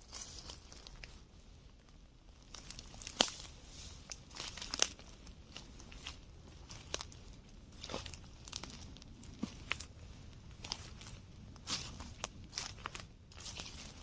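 Footsteps crunching through dry fallen leaves and twigs, an irregular rustling with a few sharper cracks, the loudest about three and five seconds in.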